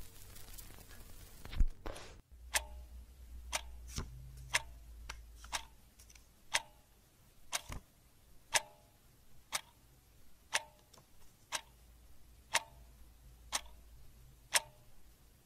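Clock ticking steadily, about one tick a second. A single low thump about a second and a half in is the loudest sound.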